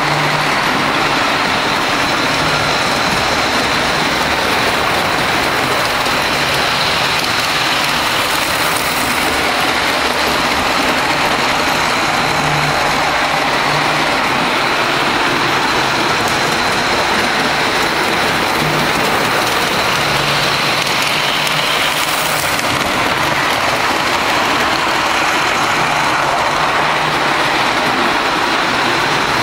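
G gauge model train running on the layout: a steady, unbroken rolling noise of wheels on rail and motors, with a faint thin tone above it.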